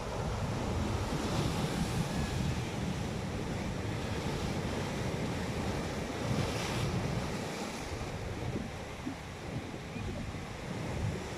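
Sea waves washing on the shore, their hiss swelling twice, with wind buffeting the microphone in a steady low rumble.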